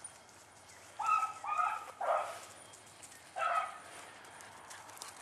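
Beagle hound baying while running a rabbit's track: four short bays, three close together, then one more after a pause.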